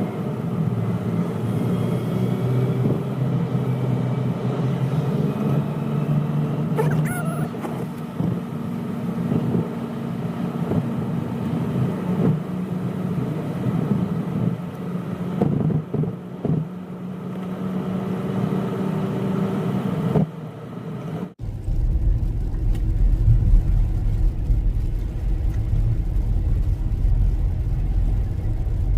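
Steady car-interior noise while driving, with a low engine and road hum. About 21 seconds in it cuts abruptly to a deeper rumble.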